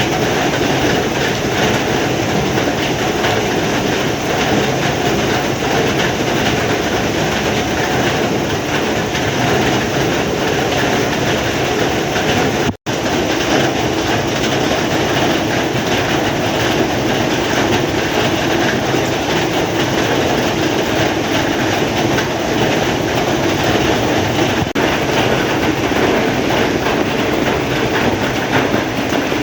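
Heavy rain falling in a steady, dense downpour. The sound cuts out for an instant once, a little before halfway.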